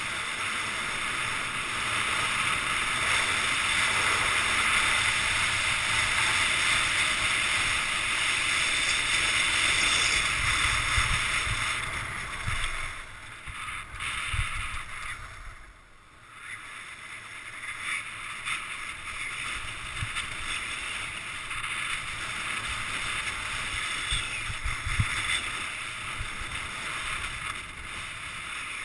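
Rush of wind on the microphone with the hiss of skis carving over groomed snow during a fast downhill run. It drops away for a moment about halfway through, then picks up again.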